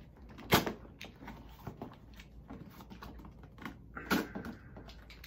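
Box cutter scraping and slicing along the taped seam of a cardboard shipping box, a run of small scratchy clicks with a sharp snap about half a second in. A louder crackle of cardboard comes about four seconds in as the box top is worked open.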